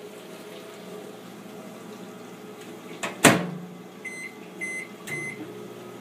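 Microwave oven door shut with a sharp clack, then three short keypad beeps about half a second apart as it is set and started. After the last beep the oven's low running hum comes up.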